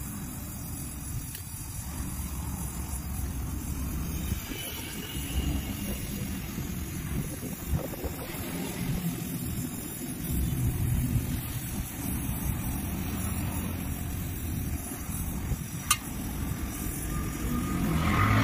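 Gas welding torch burning with a steady rushing hiss while aluminium is gas-welded onto an alloy wheel rim, over a low rumble. A single sharp click near the end.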